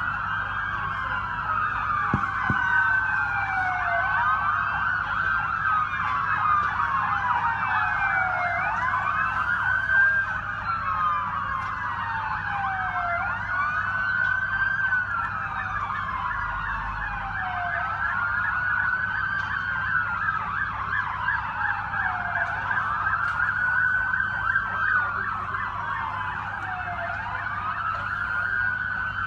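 Several emergency vehicle sirens wailing at once, their slow rising and falling sweeps overlapping and repeating every few seconds.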